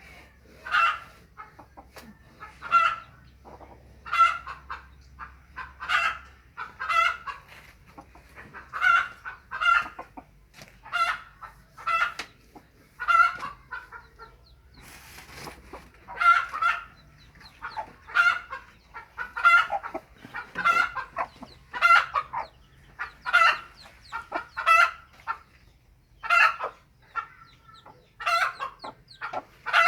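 Kampung chickens clucking: short calls repeating about once a second, some in quick pairs, throughout.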